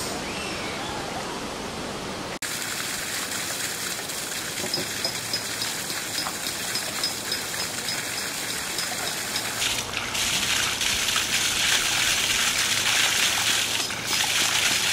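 Water pouring from a pipe spout onto rocks and running into a shallow pool: a steady splashing rush that cuts in about two seconds in and grows louder from about ten seconds in.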